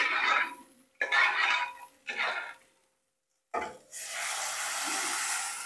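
A metal spoon scrapes the inside of an aluminium pressure-cooker pot three times. Then boiled lentils are poured into hot oil with fried onion and tomato, setting off a loud, steady hiss and sizzle.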